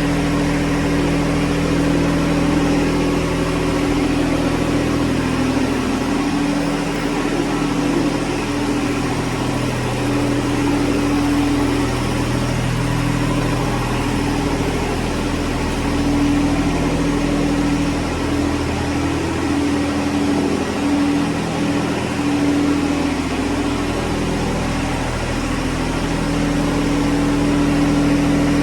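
John Deere 1025R compact tractor's three-cylinder diesel engine running steadily.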